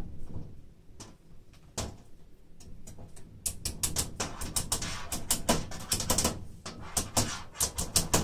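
Rapid sharp clicks and taps from glass-replacement work on a wooden sash: a few at first, then coming thick and fast from about three and a half seconds in.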